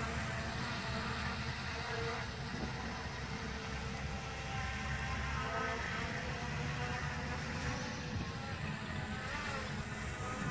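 Hubsan H501S quadcopter's four brushless motors and propellers buzzing as it flies overhead: a steady whine of several tones together, its pitch wavering as the drone manoeuvres.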